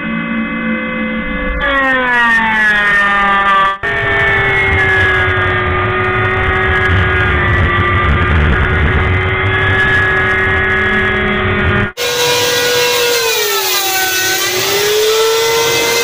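Electric hand planer running and shaving a wooden board, its motor whine sagging in pitch as the cutter takes load, then dipping and recovering again near the end. The sound jumps abruptly a few times, about 2, 4 and 12 seconds in, where takes are spliced together.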